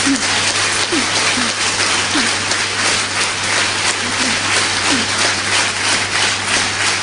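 Audience applauding after a live storytelling performance, dense and steady clapping, with a low hum underneath.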